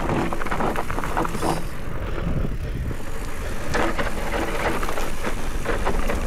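Specialized Turbo Levo electric mountain bike riding down a dirt trail: tyres crunching over loose ground and the bike rattling in dense clatter. The clatter eases for a moment about two seconds in, then picks up again.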